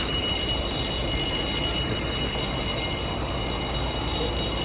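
A fire alarm sounding continuously: a steady high-pitched ringing made of several fixed tones, over a steady low rumble.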